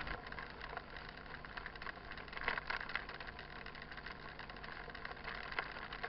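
Riding noise of a mountain bike climbing a gravel dirt road: a steady low hum with faint tyre crunch and small rattles, and a couple of louder knocks about two and a half and five and a half seconds in.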